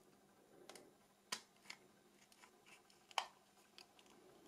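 Faint, sparse small clicks and ticks of a Nokia 6300's plastic housing being handled and taken apart, with two sharper clicks, about a second in and about three seconds in.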